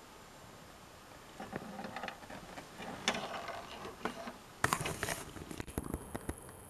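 Close handling noise: a run of small clicks, taps and rustles from hands or a tool working on the opened VCR mechanism, with one sharp click about three seconds in and the loudest cluster of clicks a little later.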